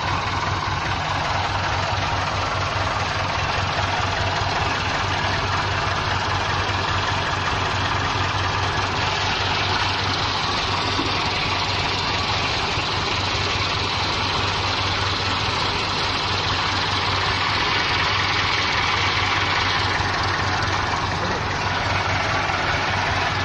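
Farm tractor's diesel engine running steadily at low speed, with an even, unchanging level and no revving.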